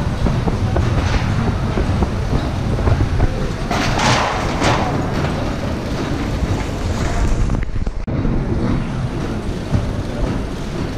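Steady din of confectionery production-line machinery, conveyor belts and processing machines running, with a short burst of hiss about four seconds in.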